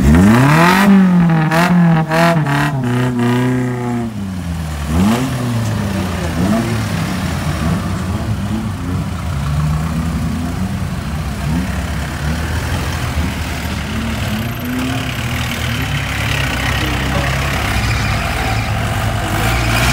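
A modified car's engine revving hard several times in quick succession, the pitch swinging up and down, with one more rev about five seconds in. After that it runs at lower revs with small blips.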